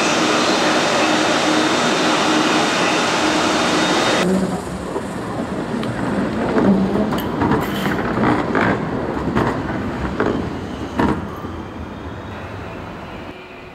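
ICE 3M high-speed train standing at the platform with its doors open, a loud steady hiss from its ventilation and auxiliary equipment. About four seconds in, this cuts to a Siemens Combino low-floor tram passing on a curve, its wheels clicking and rattling over the rails, fading as it moves away.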